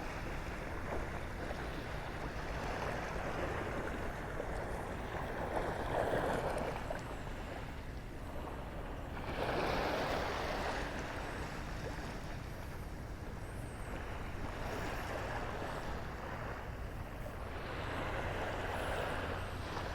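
Small Gulf of Mexico waves lapping gently on the shore, a few washes swelling and fading over a steady hiss of surf.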